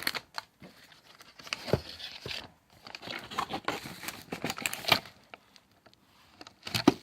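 Packaging being handled: rustling and crinkling, with a few sharp clicks and knocks as items are moved and set down, the loudest near the end.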